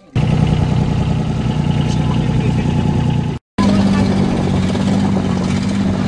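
Motorized bangka (outrigger boat) engine running steadily with a low hum. The sound drops out for an instant a little over three seconds in and then carries on.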